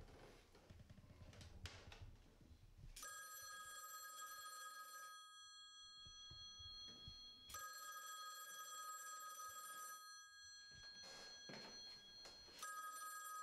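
Telephone ringing: three rings of about two to three seconds each with pauses of about two seconds between, the first about three seconds in and the last starting near the end.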